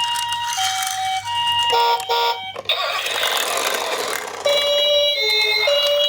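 Electronic hi-lo two-tone sirens of toy ambulance minicars. One switches between two pitches about every half-second, then breaks into a brief rapid warble and a second or so of noise. About halfway through, a lower-pitched two-tone siren takes over.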